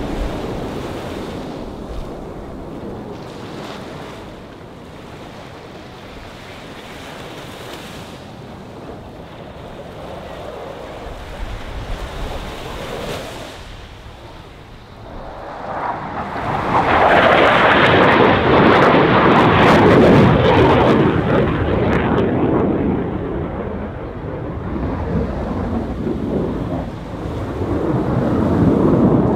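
Roar of a Blue Angels F/A-18 Super Hornet's jet engines as it makes a pass: faint at first, growing suddenly loud a little past halfway for several seconds, easing, then building again near the end as the jet climbs.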